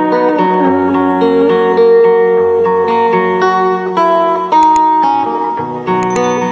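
Instrumental music led by plucked guitar, with sustained melodic notes changing every half second or so; a passage of the song with no singing.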